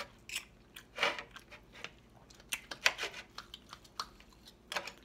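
A person chomping close to the microphone on chicken thighs and mushrooms, with irregular wet smacks and mouth clicks, the sharpest just before the middle. A knife and fork work at the food on a ceramic plate at the same time.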